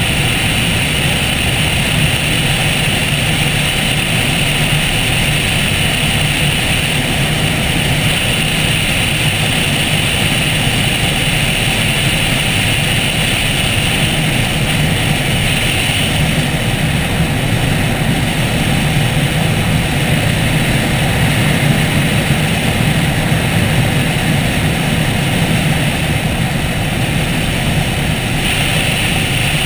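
Piper Super Cub's piston engine and propeller running steadily, with rushing air over a wing-mounted camera; the sound shifts about halfway through and again near the end.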